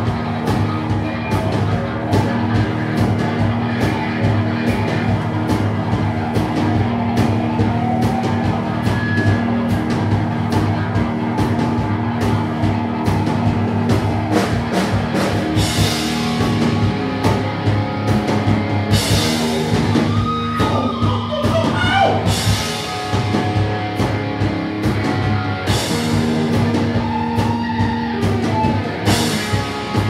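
Live rock band playing: electric guitars and bass over a drum kit keeping a steady beat, with cymbal crashes every few seconds in the second half.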